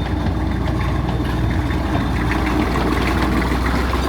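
Tractor engine running steadily at low revs.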